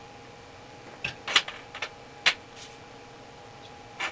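Sharp metal knocks and clinks from handling the galvanized steel tube and TIG gear on a steel welding table: a quick cluster about a second in, a single loud knock a little later, and another near the end, over a faint steady hum.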